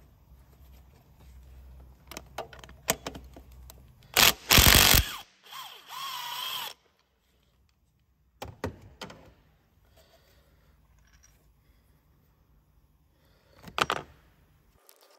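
Milwaukee 3/8 impact driver run in two short bursts, about four and six seconds in, undoing the diesel injector's E12 Torx clamp bolt. Scattered light clicks and knocks of tools on the engine come before and after, with one short loud clatter near the end.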